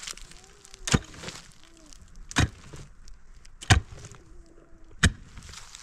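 Pickaxe blade striking into dry, packed earth: four blows, about one every second and a half, each followed by a short rasp of loosened soil.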